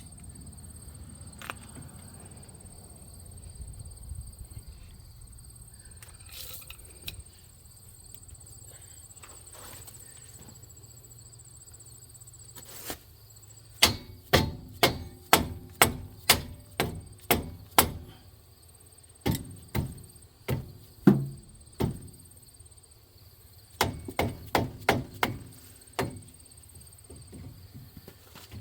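Hammer blows on the stuck front brake caliper assembly: three runs of sharp metal strikes, about two a second, beginning roughly halfway through with short pauses between them. Before the blows there is only a faint steady background.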